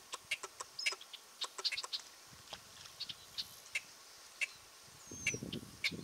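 Short, sharp clicking calls in a marsh, several a second at irregular intervals, with a thin high chirp and a low rumble starting about five seconds in.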